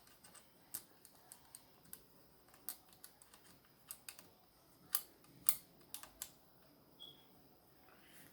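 Irregular sharp clicks and taps as the plastic parts of a Pumpmaster 760 BB gun are handled and fitted, about a dozen spread out, the two loudest about five seconds in.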